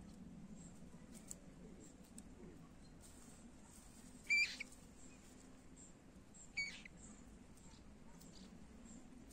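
Two short, high-pitched calls about two seconds apart, most likely from a juvenile common moorhen foraging in the grass, over a faint low hum with a few soft clicks.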